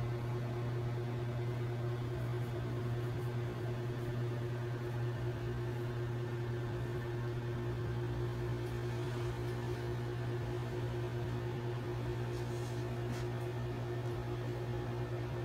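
Steady low electrical hum with a faint hiss: room tone, with no change.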